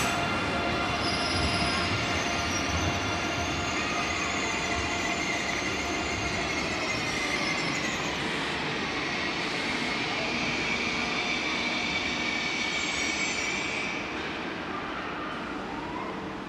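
German ICE3 high-speed train's wheels squealing as it runs through a very sharp curve, several high tones that slowly waver and shift in pitch over the rumble of the train, easing off and getting quieter near the end.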